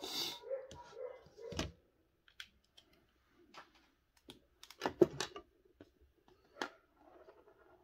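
Small screws and plastic-and-metal transmission parts clicking and tapping as they are handled and set down on a workbench, after a short whirring at the start. A heavier knock comes about five seconds in.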